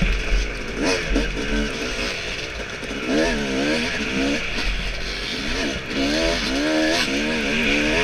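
Yamaha dirt bike engine racing under the rider, its pitch surging up and down in quick waves as the throttle is worked through the turns.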